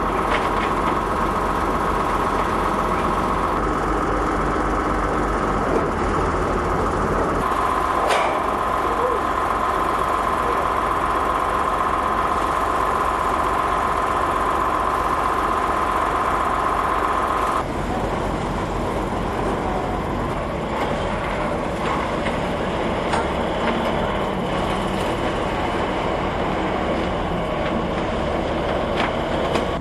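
Engine of a multi-wheeled hydraulic heavy-haul trailer running steadily, with a steady high whine over it that cuts off abruptly about two-thirds of the way through.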